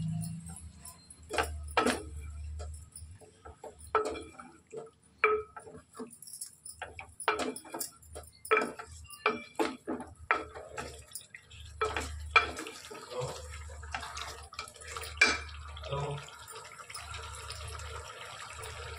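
Kitchen utensils clinking and knocking irregularly against cookware, with short ringing after each knock, sometimes several a second.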